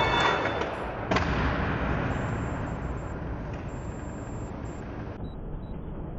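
Inline skates grinding along a concrete ledge, ending in one sharp landing smack about a second in. A rush of noise follows and slowly fades.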